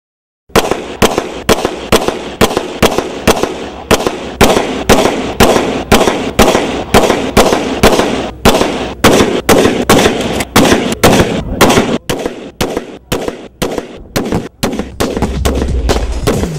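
A rapid string of gunshots, about two to three a second, each with a short echo, running for some fifteen seconds. Near the end the shots give way to music with a low steady beat.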